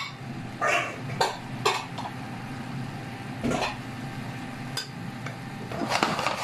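A metal spoon knocking against a large metal cooking pan full of lamb chops and chopped vegetables: a few separate knocks, then stirring and clattering start near the end, over a steady low hum.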